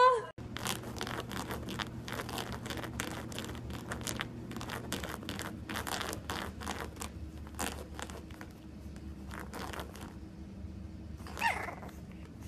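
French bulldog puppy's paws scratching and scrabbling on a fabric couch cushion as it paws at a small object: a quick, uneven run of dry scratchy clicks and crinkles. A brief high squeak near the end.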